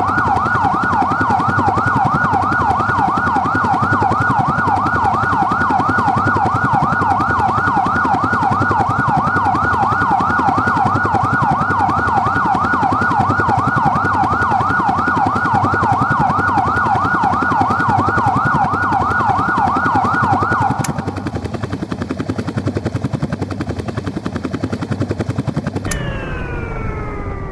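Police helicopter rotor chopping steadily under an electronic yelp siren that repeats rapid rising sweeps, until the siren cuts off about two-thirds of the way in. Near the end the helicopter shuts down: its turbine winds down with falling whines.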